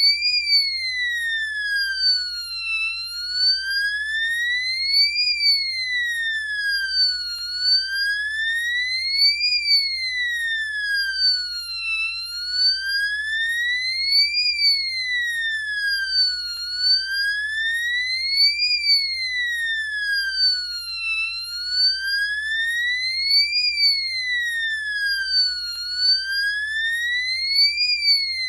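Electronic emergency siren in wail mode, the fire-truck tone: one pitch sweeping slowly up and back down in an even cycle of about four and a half seconds, repeating steadily.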